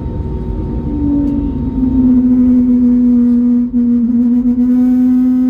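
Low, steady rumble inside the cabin of an Airbus A321neo, joined about a second in by a loud, steady droning tone that dips briefly midway and then holds.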